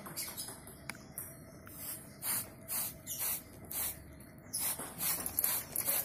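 Hand trigger spray bottle squirting water mist onto a cockatoo's feathers: a run of short hissing squirts, coming faster in the second half.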